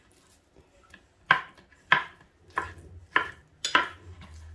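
Kitchen knife striking a cutting board while dicing raw chicken breast into cubes: about five sharp chops, roughly two a second, starting just over a second in.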